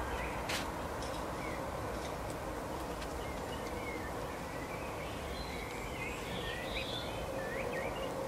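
Small songbirds giving short, scattered high chirps over a steady background hiss, with one sharp click about half a second in.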